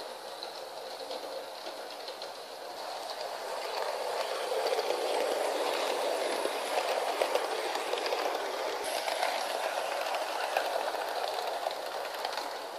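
Model 060-EA electric locomotive pulling a rake of model coaches over sectional track: a steady rolling rumble of wheels on rail with light clicking, growing louder as the train passes close by about four seconds in and easing off near the end.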